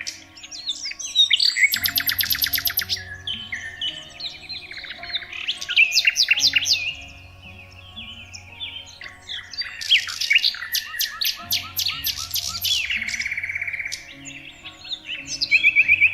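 Several songbirds calling and singing over one another, a mix of rapid trills, quick falling whistles and sharp chirps, with a faint steady low drone underneath.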